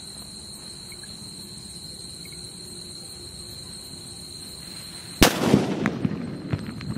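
Ajanta sutli bomb (jute-twine-wrapped firecracker) exploding with one sharp, loud bang about five seconds in, followed by a scatter of smaller crackles and pops as the debris settles. A steady high insect trill carries on underneath.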